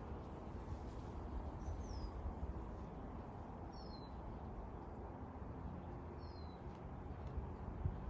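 A bird calling three times, each call a short high pair of falling notes, about two seconds apart, over a steady low rumble.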